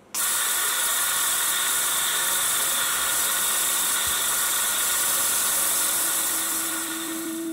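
CNC milling machine running with flood coolant spraying over the workpiece: a steady hiss with a few faint steady whining tones.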